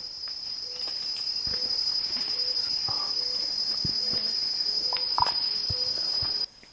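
An insect shrilling: one steady, high-pitched continuous buzz that cuts off suddenly near the end. Scattered light clicks and a faint short note repeating about twice a second sit underneath it.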